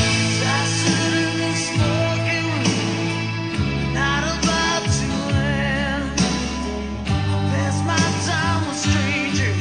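Music: a voice singing with vibrato over 12-string guitar and a steady bass line.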